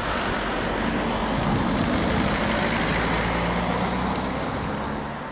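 A car driving past close by on the road, its tyre and engine noise swelling to a peak in the middle and fading away near the end.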